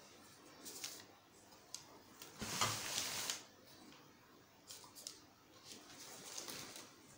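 Handling sounds from a hand moving a canvas board and painting materials on a newspaper-covered table: scattered light taps and clicks, with a brief louder rustle about two and a half seconds in.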